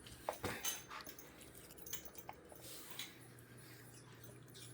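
A dog chewing apple pieces: a few faint crunches and wet clicks, most of them about half a second in, then scattered.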